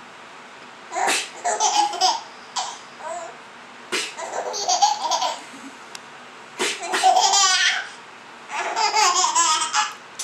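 Baby girl laughing in four separate fits, each a second or so long, with short quiet gaps between them.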